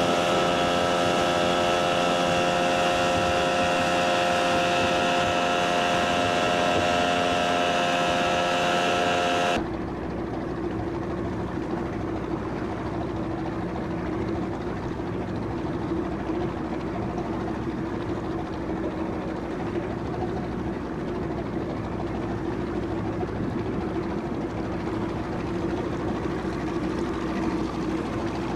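Steady drone of a boat's engine, with several steady tones over it. About ten seconds in it cuts abruptly to a quieter, rougher engine drone with a low hum.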